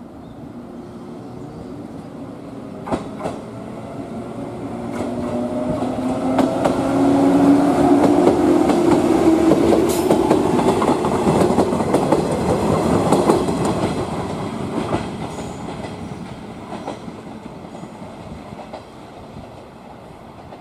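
Shinano Railway 115 series three-car DC electric train running past, growing loud as it passes close and then fading as it moves away. Its wheels click over the rail joints, with a few sharp clicks over the running noise.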